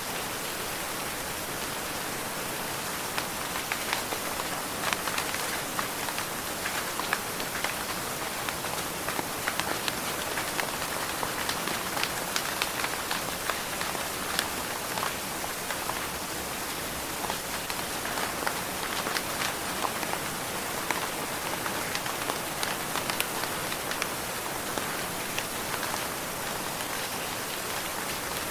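Steady rain falling, a hiss with many individual drops ticking sharply on a surface. The drop ticks are densest from about three seconds in until around two-thirds of the way through. No thunder.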